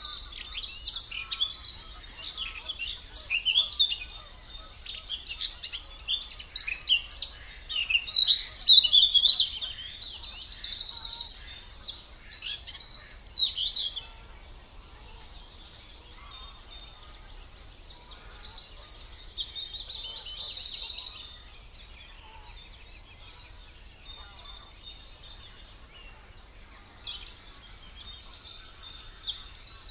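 A songbird sings long, fast runs of chattering, scratchy song. The song stops for a few seconds about halfway through, returns briefly, and pauses again before picking up near the end.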